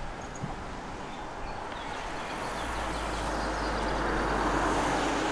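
A car approaching on the road, its engine and tyre noise growing steadily louder and peaking about four to five seconds in.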